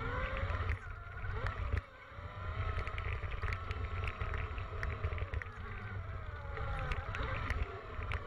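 Electric dirt bike ridden over a dirt trail: its motor whines, rising and falling in pitch as the throttle and speed change, over a steady rumble of wind buffeting the microphone and small rattles and clicks from the rough ground.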